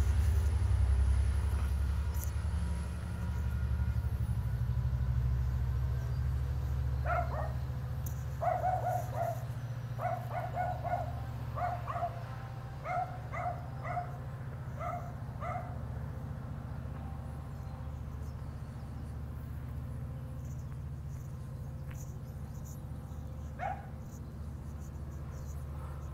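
A small dog barking a quick string of short, high-pitched yaps for about eight seconds, then once more near the end. Under the first few seconds a low rumble fades away.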